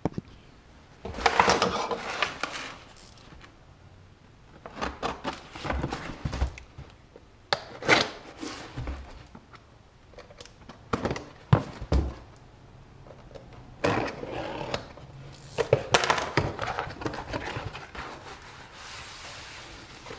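A cardboard shipping box being unpacked on a wooden workbench: plastic wrap and packaging rustle and tear in irregular bursts, with a few knocks of the box on the wood. Near the end, the plastic bag around the part crinkles as it is lifted out.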